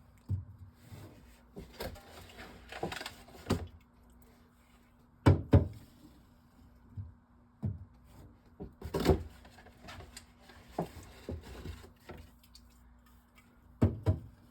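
Soda cans being handled and set onto refrigerator shelves: irregular knocks and clunks, the loudest a pair about five seconds in and another about nine seconds in, over a faint steady hum.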